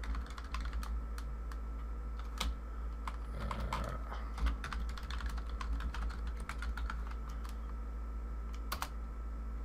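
Typing on a computer keyboard: irregular keystroke clicks, some in quick runs with short pauses, over a steady low hum.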